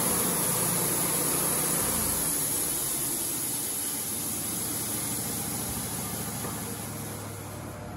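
Wood-Mizer LT35 band sawmill running: a steady engine hum under a bright hiss, which eases off gradually toward the end.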